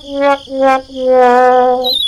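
Added sound effects: a buzzy, horn-like tone at one pitch sounds twice briefly and is then held for about a second. Near the end a warbling whistle starts to glide downward.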